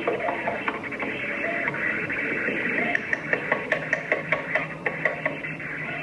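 Tinny doorbell-camera audio of a struggle at a front door: a woman's voice with scuffling, and a quick run of sharp knocks, about five a second, from about halfway through.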